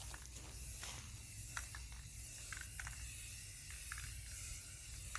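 Aerosol spray-paint can hissing steadily as white paint is dusted lightly onto a foam target.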